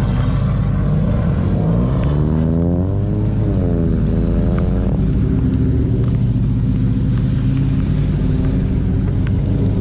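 Car engine running; it revs up over a couple of seconds, eases off, and revs again about five seconds in before settling to a steady drone.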